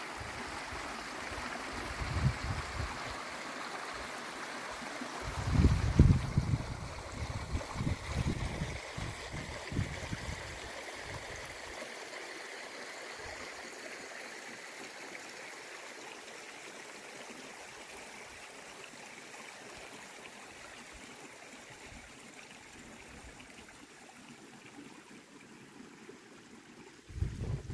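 Stream water running steadily, slowly growing fainter. Gusts of wind buffet the microphone in the first ten seconds, loudest about six seconds in, and once more near the end.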